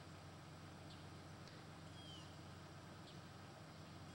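Faint bird calls: a few short high notes and one descending chirp about two seconds in, over a low steady hum.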